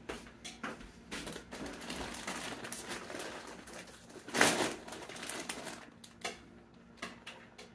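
Kitchen work sounds: irregular clicks and knocks of dishes and utensils at the stove and counter, with a louder short clatter about four and a half seconds in.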